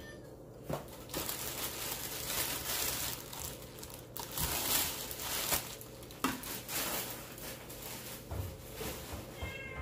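Crinkling and rustling of something being handled and crumpled, with a few sharp clicks and knocks along the way.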